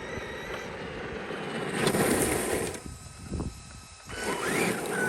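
Traxxas E-Revo electric RC truck driving: electric motor and drivetrain whirring with the tyres on the ground, loudest about two seconds in, dropping off shortly after, then picking up again near the end.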